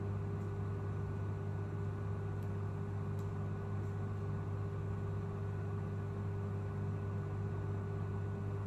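Steady low machine hum with a constant pitch that does not change.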